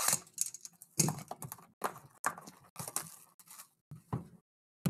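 Plastic shrink-wrap being slit and pulled off a cardboard box of trading cards: irregular crinkling and crackling with light taps and knocks from the box being handled, and a sharp click near the end.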